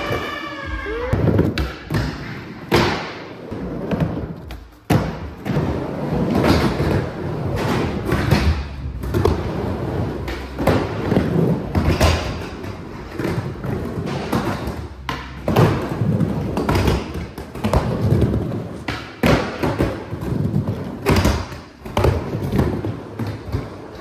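Skateboards rolling on skatepark ramps, with repeated irregular clacks and thuds from boards popping, landing and hitting the ramps, and from a slam.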